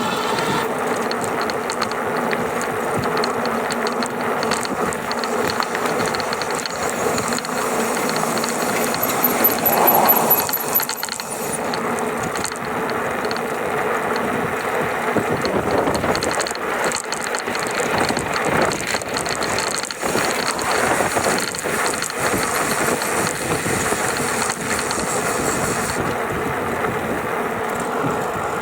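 GoCruiser's drive rattling steadily under power, the rattle that shows up when it draws between 670 and 725 watts. It swells louder briefly about ten seconds in.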